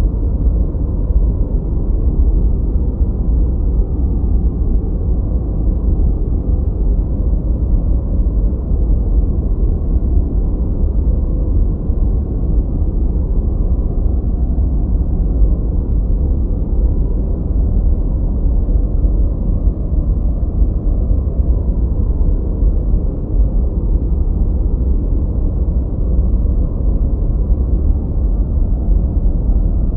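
Steady, unchanging 'gentle white noise' made for sleep and tinnitus masking, filtered deep and rumbling, with almost nothing in the treble.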